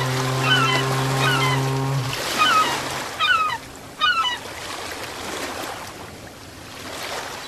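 Ocean surf washing steadily, with a deep, steady horn-like tone that stops about two seconds in and trails off by three. Short bird chirps repeat over the first four seconds.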